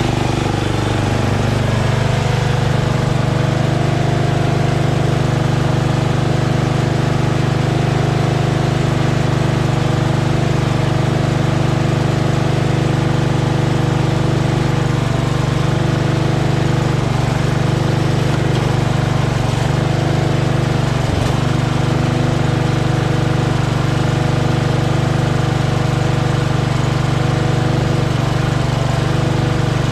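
Craftsman LT2000 lawn tractor's engine running steadily, its pitch holding even.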